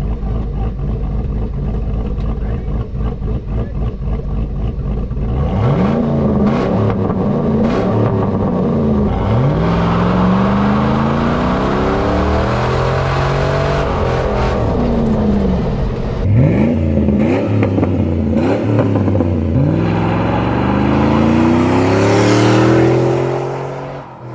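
Junkyard 5.3 L LS V8 with a Truck Norris camshaft running steadily at low revs, then taken hard up the rev range several times, its pitch climbing and dropping back each time, as the truck is driven hard. The revs fall away sharply at the very end.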